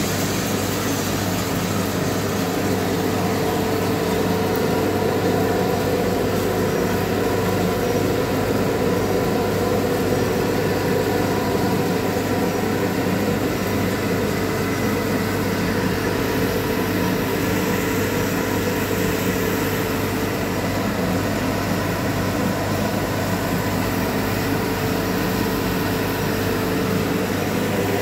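Drum coffee roaster's cooling tray running: the motor and cooling fan hum steadily while the rotating stirring arm sweeps the freshly roasted beans around the tray, cooling them after the roast.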